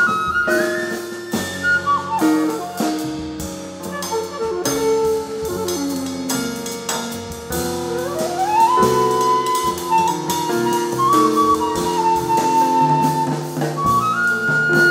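Jazz band playing: a lead melody line that slides upward into long held notes, over lower sustained notes and steady drum-kit strokes.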